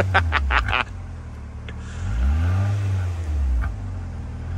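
Rover Streetwise's K-Series four-cylinder petrol engine running at idle, revved once about two seconds in and settling back down near the end.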